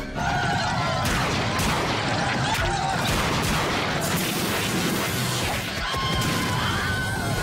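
Cartoon fight sound effects: a dense run of crashes and impacts over action music.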